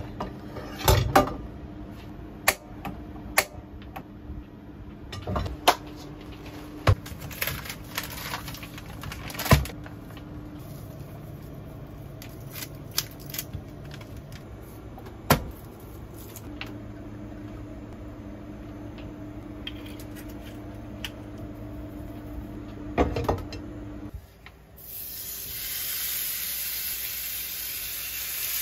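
Kitchen handling sounds: scattered knocks and clicks as a grill pan is set on a gas burner and steaks are handled, over a steady low hum. About three-quarters of the way through, the hum stops and raw steaks laid into the hot pan start sizzling.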